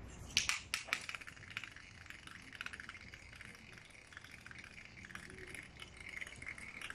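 Two metal-tipped spinning tops (trompos) thrown onto concrete: a few sharp clacks as they land in the first second, then a steady high whirr of their metal tips spinning on the pavement.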